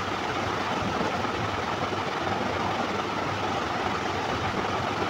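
Steady sizzling of chicken and potato pieces frying down in spice paste in a non-stick wok.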